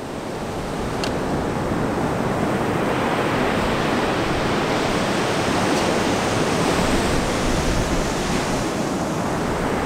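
Ocean surf breaking on a beach: a steady rush of noise that swells over the first couple of seconds and then holds.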